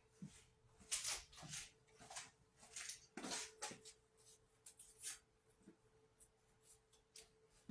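Faint rustling and clicking of small objects being handled by hand on a counter, in a few short clusters that thin out toward the end, over a faint steady hum.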